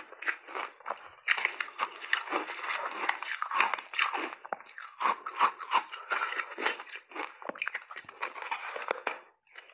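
Close-up crunching and chewing of hard frozen layered ice coated in milk powder, a dense run of sharp crackling crunches one after another, with a fresh big bite near the end.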